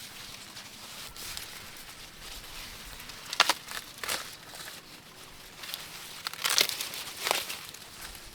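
Dry plant material rustling and crinkling, with four louder sharp crackles and tears about midway and near the end, as in handling or tearing dry corn leaves and husks.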